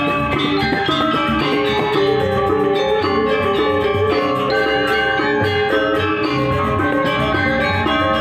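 Balinese gamelan music accompanying a dance: bronze metallophones ring out quick runs of struck notes over drums, at a steady, full level.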